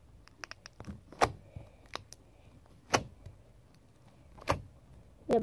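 Slime being poked with a finger, giving sharp sticky pops and clicks, the louder ones a second or so apart with fainter ticks between.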